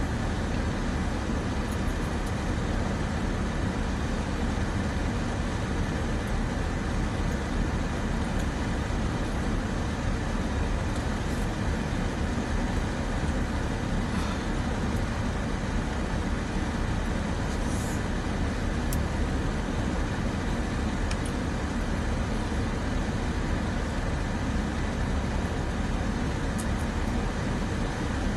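Steady low rumble and hiss inside a car's cabin, from the car's engine idling, with a few faint ticks.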